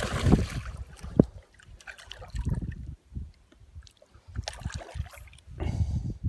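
Water sloshing and splashing beside a small boat while a hooked smallmouth bass is fought close in, with irregular rumbles and a sharp knock about a second in.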